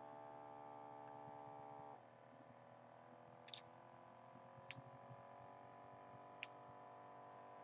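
Faint electrical hum, a set of steady tones that changes about two seconds in and then slowly rises in pitch, with three soft clicks.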